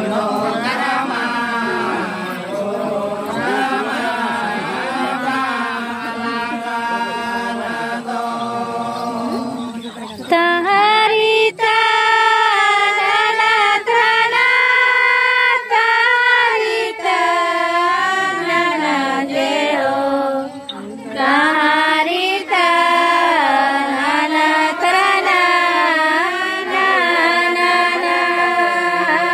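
Voices singing a chant-like Karam ritual song in long, wavering held notes. A louder, higher voice takes the lead from about ten seconds in.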